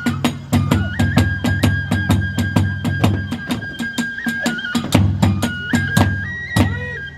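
Kagura hayashi music: a transverse flute holding long high notes that step up in pitch, over fast, even strikes of small hand cymbals and drum, about six a second.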